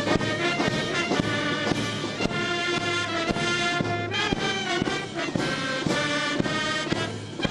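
Military brass band playing a ceremonial piece, with drum strokes among the brass.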